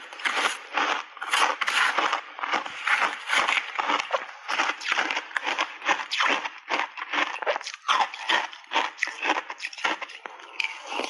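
Close-miked chewing of crunchy shaved ice coated in matcha milk powder: dense, irregular crunches several times a second.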